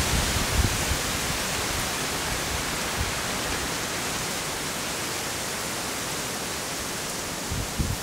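Wind blowing through swamp trees and foliage, a steady rustling hiss of leaves that slowly eases.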